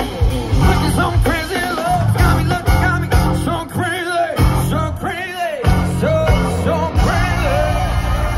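Live rock band playing through a PA, with drums and bass under a wavering lead melody. The bass and drums drop out for about a second and a half around the middle, leaving the lead on its own before the band comes back in.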